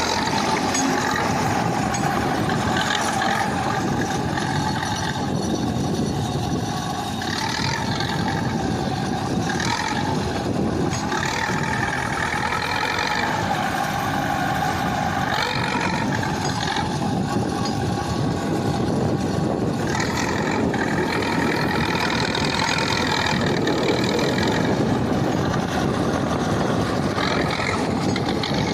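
KhTZ T-74 crawler bulldozer's diesel engine running steadily as the machine works, its pitch rising and falling slightly.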